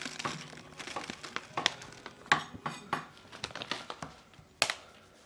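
A stainless-steel measuring cup being handled while brown sugar is pressed into it by hand: scattered light clicks, taps and scrapes of the metal cup on a stone countertop, with one louder knock about four and a half seconds in.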